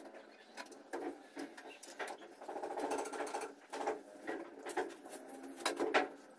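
Small hand trowel scraping along the surface of a cement column in a series of short, irregular strokes as it is smoothed.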